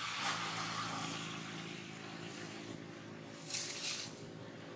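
Steady low hum of a running motor engine over a background hiss, with a brief rustle about three and a half seconds in.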